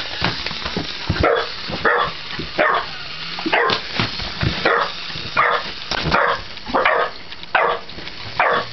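A dog barking rapidly and excitedly at a wind-up toy dog, about a dozen barks, one every half to three-quarters of a second.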